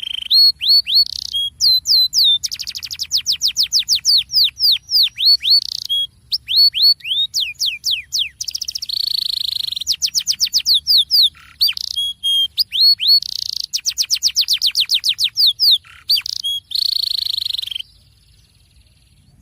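Canary singing a rolling song: fast trills of repeated downward-sweeping notes alternating with buzzy held passages, stopping shortly before the end.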